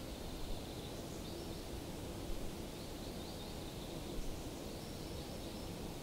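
Added outdoor nature ambience: steady background noise with faint, short high chirps now and then.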